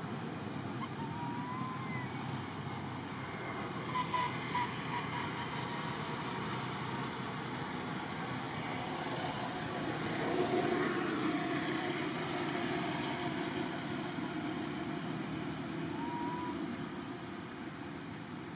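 Steady background hum of distant road traffic, with a few brief high chirps: one near the start, a short run about four seconds in, and one near the end.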